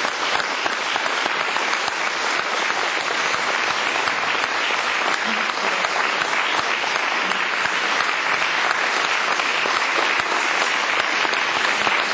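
Audience applauding steadily, a dense, even clapping that holds throughout.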